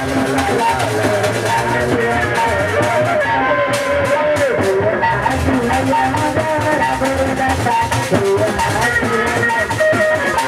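Live Sundanese traditional music: kendang hand drums keeping a steady beat under a wavering melody line, playing without a break.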